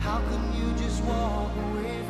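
Background music: a melody over steady low bass notes.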